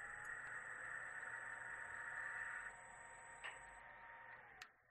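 Faint, steady running of a Rivett lathe with a thin whine, while a larger drill in the tailstock chamfers the edge of a pilot hole in the spinning part. The whine sinks in pitch and fades near the end, and there are two light clicks.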